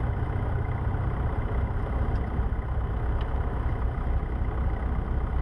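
Cessna 150's Continental O-200 four-cylinder engine and propeller running steadily at low power before the run-up, heard from inside the small cabin as a constant low drone.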